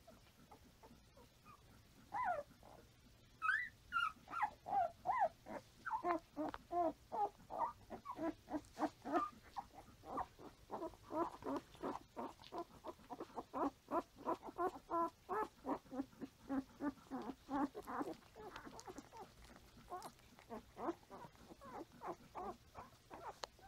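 Newborn standard poodle puppies squeaking and whimpering in short, quick calls, several a second, starting about two seconds in and keeping on.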